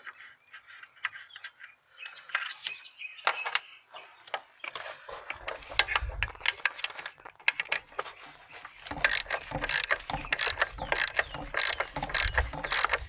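Ratchet wrench clicking as the master cylinder's mounting nuts are run off with a deep-well 13 mm socket on an extension. The clicks are scattered at first and turn into rapid, steady ratcheting from about halfway.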